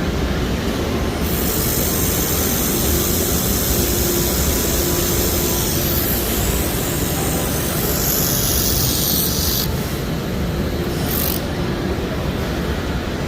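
Laser welder at work: a steady low machine hum throughout, with a high hiss that starts about a second in, runs for about eight seconds and cuts off sharply, then a brief second burst of hiss.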